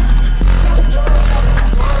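Background music with a heavy bass line and a beat.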